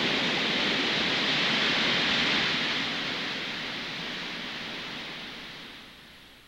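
Rushing water over stream rapids, a steady dense rush that fades away gradually over the last few seconds.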